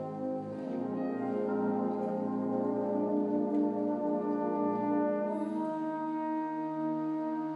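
High school concert band playing slow, held chords. The harmony changes about five seconds in, as the lowest notes drop away.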